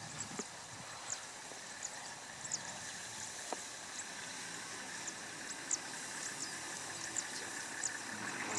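Engine of a safari four-wheel-drive vehicle driving slowly closer through tall grass, faint at first and growing louder near the end, with short high chirps scattered throughout.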